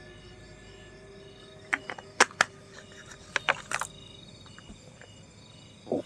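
Plastic water bottle crinkling and crackling in the hand as it is drunk from and capped, a cluster of sharp clicks and crackles about two to four seconds in, then a short dull sound near the end as it is set down. Crickets chirp steadily behind, about twice a second.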